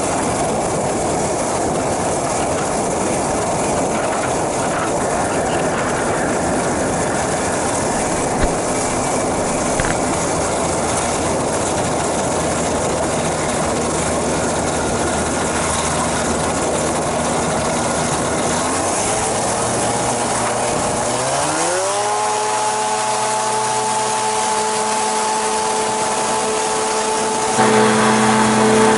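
Flying boat's pusher engine and caged propeller running steadily under a rushing noise. About two-thirds of the way through, the engine speeds up, rising in pitch, then holds a higher steady note. Near the end it suddenly becomes louder and closer.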